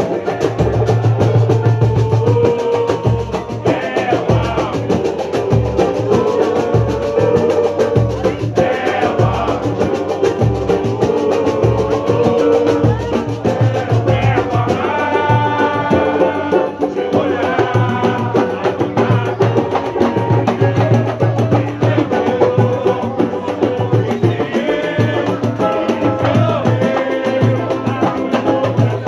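Live samba pagode played by a small group: banjo, pandeiro, acoustic guitar and a drum, with a steady repeating low beat and voices singing along.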